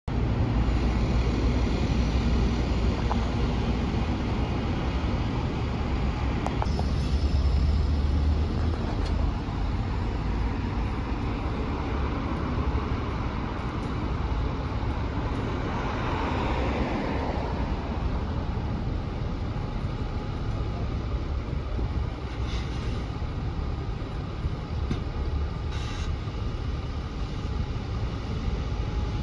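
Bus engines running with passing road traffic: a steady low rumble, with one vehicle passing close about halfway through.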